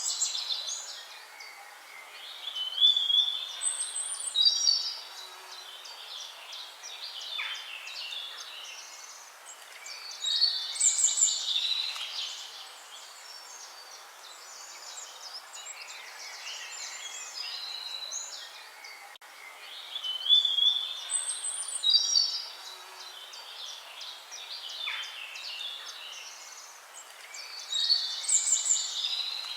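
Several songbirds singing and chirping in high warbled phrases over a faint steady hiss. The same stretch of birdsong comes round again about every 17 to 18 seconds, as a looped nature recording does.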